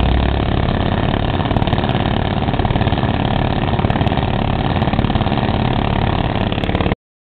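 Heavy diesel engines of construction machinery running steadily at idle. A deep low hum eases off under a second in, and the sound cuts off abruptly about half a second before the end.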